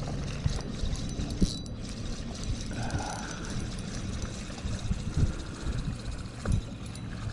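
Fishing reel being cranked to bring in a hooked small bass, its gears giving a quick run of fine mechanical clicks.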